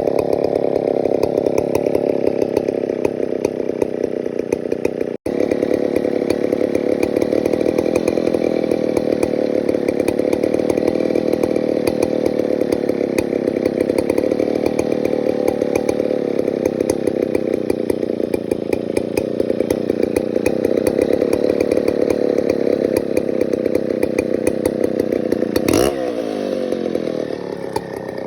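Stihl 070 two-stroke chainsaw running under load as it cuts wood, its engine note wavering slightly. There is a split-second break about five seconds in, and near the end the engine changes pitch.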